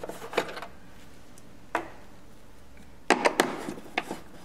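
Metal clicks and taps of a red-handled socket driver being set onto and turning the bolts on a plastic housing. A few scattered clicks come first, then a quick run of clicks starting about three seconds in.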